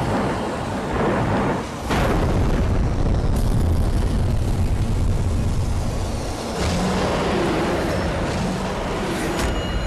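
Dramatic TV soundtrack of a dinosaur attack: a loud, deep rumble with booms, sudden whooshes near the start and about two seconds in, mixed with dramatic music.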